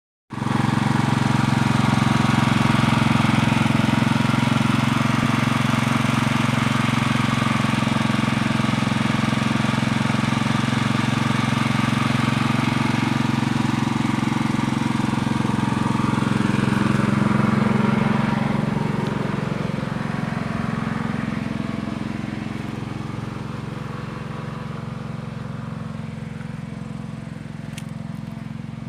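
High-pressure washer machine running steadily with a low, even hum, easing off and getting quieter about two-thirds of the way through.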